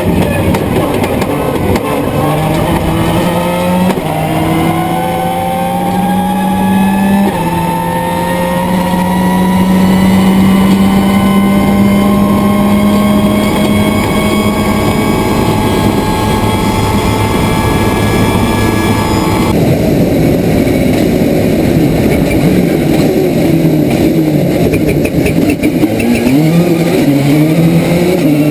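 Subaru Impreza S11 WRC's turbocharged flat-four rally engine at full throttle, heard from inside the car: it changes up through the gears in the first several seconds and then holds a long steady pull. About two-thirds of the way in it comes off the throttle suddenly, and the revs rise and fall quickly in choppy bursts, as the car brakes and takes bends.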